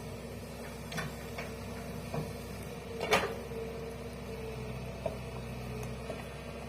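Hitachi excavator's diesel engine running steadily, with a handful of short knocks and clanks from the machine at work, the loudest about three seconds in.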